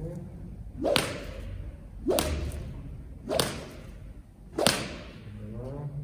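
Horse-training whip swung four times, a little over a second apart, each stroke a quick swish ending in a sharp crack. The whip is being used to get a horse used to it (whip desensitization).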